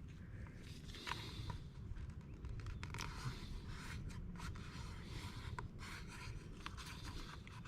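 Faint scraping and rubbing of a squeegee pressing 3M 2080 vinyl wrap film down into tight corners, with scattered small ticks.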